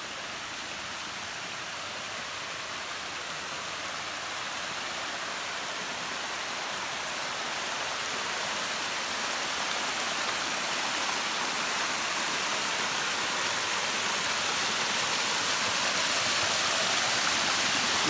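Spring water cascading down a small waterfall over mossy rocks: a steady rush that grows gradually louder throughout.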